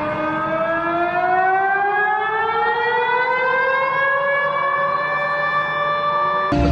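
Civil defense siren winding up, one tone rising slowly and steadily in pitch for about six seconds. It cuts off suddenly near the end, and a new siren tone starts rising at once.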